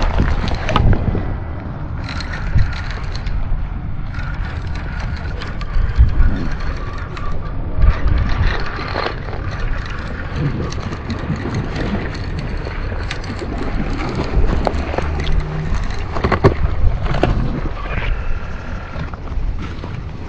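Wind rumbling on the microphone, with a baitcasting reel being cranked in stretches of a second or two (a faint whir) and scattered knocks from handling the rod and reel.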